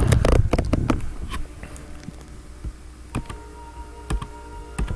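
Scattered sharp clicks and taps, with a dense run of louder knocks and thumps in the first second. About three seconds in, quiet music with steady held notes begins under the clicks.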